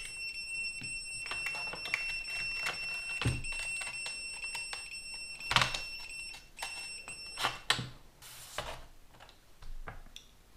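Fluke two-pole tester giving a steady high continuity beep across an immersion heater's rod thermostat that has been cooled back down, cutting off about seven and a half seconds in. A few knocks as the tester and thermostat are set down on a metal tray.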